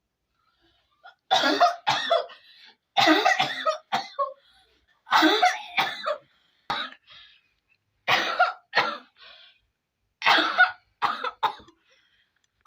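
A woman coughing hard in about five fits a couple of seconds apart, each a loud cough followed by one or two shorter ones. The coughing is put on, faked to look like coughing up blood as a prank.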